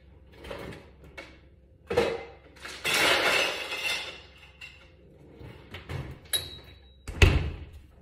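Ice cubes clattering as they are scooped out of a refrigerator's ice bin, with a knock before and a heavy thud a little after seven seconds as the refrigerator door shuts.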